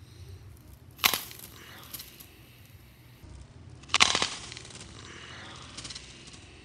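A red apple cracking apart as it is crushed in a bare hand: a sharp crunching snap about a second in, and another a few seconds later. Each snap is followed by a brief crackle as the flesh splits.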